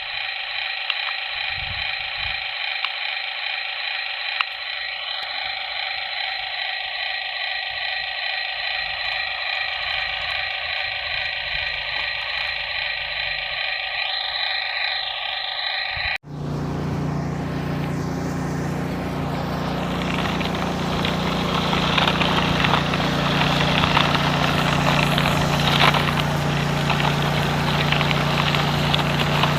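Remote-control toy construction vehicles running: a steady, thin, tinny engine-like sound with small clicks, which cuts off abruptly about halfway through and is replaced by a fuller, steady engine-idle sound with a low hum.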